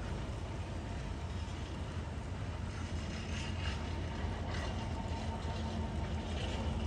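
Freight trains with Class 66 diesel locomotives and container wagons passing, a steady low rumble of engine and wheels that grows louder. A few short higher-pitched scrapes of wheel on rail come about three and a half, four and a half and six and a half seconds in.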